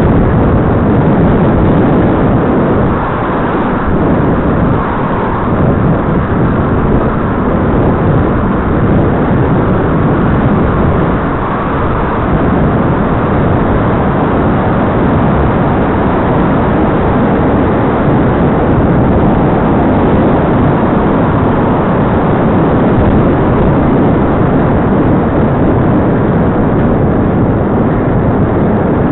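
Steady loud rush of wind and road traffic noise on the microphone of a camera mounted on a moving bicycle, with a lorry ahead in the traffic.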